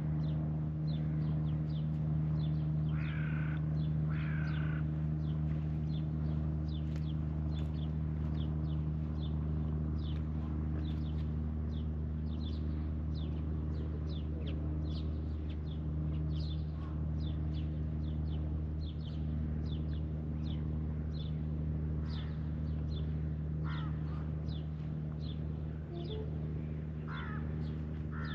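Birds calling over a steady low mechanical hum: a continual run of short, high, falling chirps, with a few harsher cawing calls, two close together a few seconds in and several more near the end.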